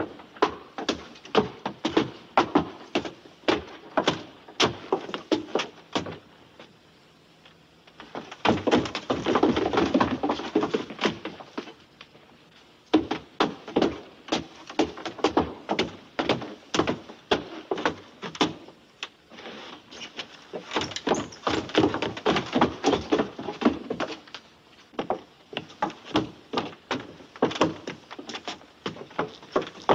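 Footsteps on wooden boards: a steady series of hollow knocks at about two a second. The steps come quicker and closer together twice, about a third of the way in and again past two thirds, after a short pause.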